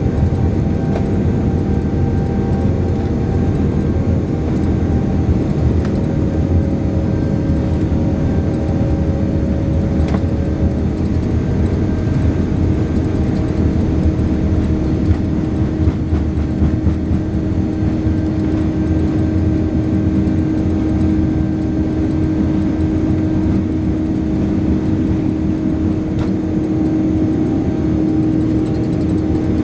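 Boeing 787-9's Rolls-Royce Trent 1000 turbofans at takeoff power, heard from inside the cabin during the takeoff roll: a steady roar with a held low hum that grows a little stronger near the end.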